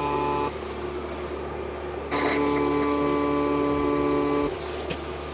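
MIG welder stitch-welding a steel frame: the arc runs steadily until about half a second in and stops, then strikes again about two seconds in and runs for about two and a half seconds before stopping.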